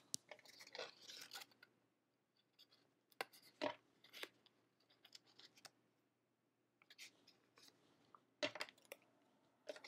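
Faint handling of a roll of Glue Dots and small card pieces: short, scattered crackles and clicks in a few clusters, with quiet gaps between them.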